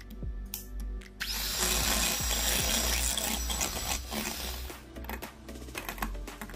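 Electric hand mixer running, its beaters whipping cream in a bowl, loudest from about a second in until about five seconds in, with background music underneath.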